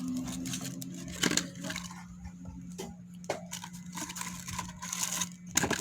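Handling noise from small plastic toy parts and packaging: scattered clicks and crackles over a steady low hum.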